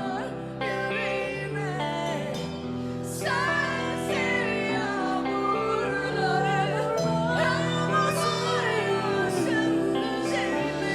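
A woman singing a Turkish song with vibrato over instrumental backing of held notes.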